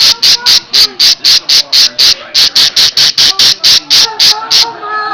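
Parakeet giving a rapid, regular string of loud, high-pitched alarm chirps, about five a second, like an electronic alarm beeping. This is its alarm call at someone coming close. The chirping breaks off for a moment near the end.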